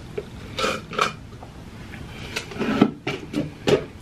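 Table-handling and eating sounds: a string of short clatters and rustles from a plastic drink cup with a straw and food on a metal tray, busiest in the second half.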